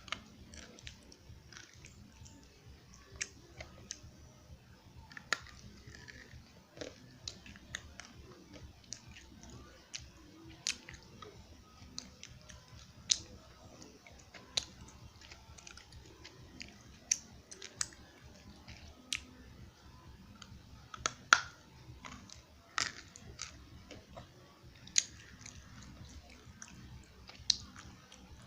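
A person biting and chewing crunchy eko clay, with sharp, irregular crunches every second or two.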